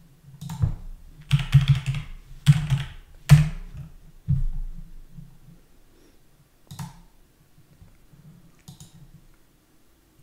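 Computer keyboard typing: a quick run of keystrokes over the first few seconds, followed by two single mouse clicks a couple of seconds apart.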